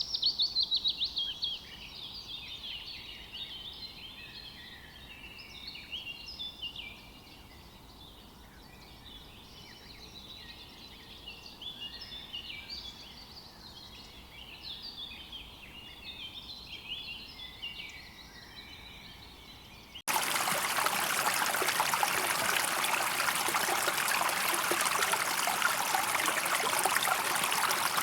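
Songbirds chirping, with many short, overlapping calls, loudest at the start. About two-thirds of the way through it cuts abruptly to the louder, steady rush of a flowing stream.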